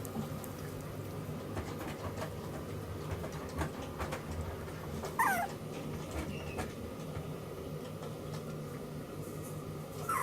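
Toy poodle puppy giving a short, high whine about halfway through and another at the very end, with scattered light clicks over a steady low hum.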